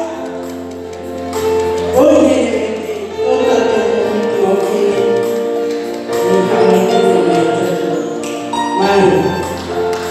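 A choir singing in long held notes, the voices moving together from chord to chord.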